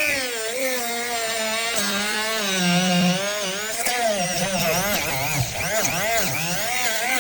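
Electric grinder spinning an emery cloth disc against a plastic toy, its motor whine wavering up and down in pitch, more unevenly in the second half.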